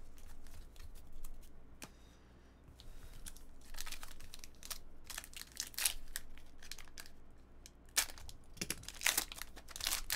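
Foil trading-card pack wrapper crinkling and tearing as it is slit with a utility knife and peeled open, in a run of short crackles with a sharp click about eight seconds in.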